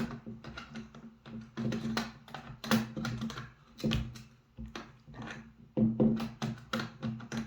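Irregular clicks, knocks and rattles of metal parts being handled as the nail magazine track is fitted back onto a DeWalt pneumatic nailer, over a steady low hum.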